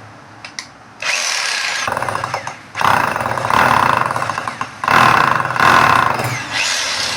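Electric rotary hammer run in three loud bursts, each starting suddenly with the motor whining up to speed and a fast hammering rattle; a test run of the tool after its armature and carbon brushes were dealt with.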